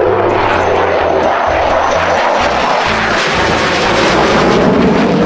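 Single-engine F-16 fighter jet flying past, a loud continuous jet roar whose pitch slides lower as it goes by. Low background music notes run underneath.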